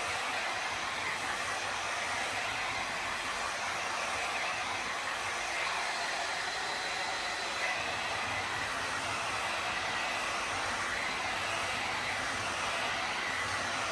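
Heat gun blowing steadily, a constant airy hiss with no breaks, warming the wheel.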